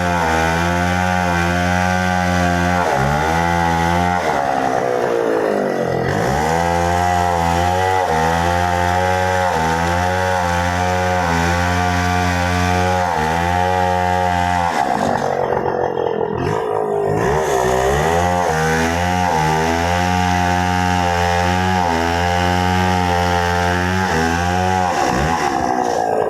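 Chainsaw running at high revs while cutting wood, its engine note sagging and recovering several times as the chain bites in and the engine bogs under load.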